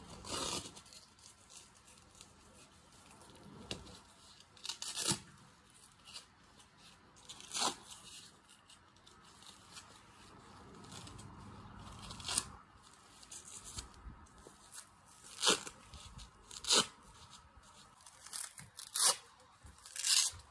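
Hook-and-loop (Velcro) straps on horse leg boots being ripped open and pressed shut: a string of short, sharp tearing sounds one to three seconds apart.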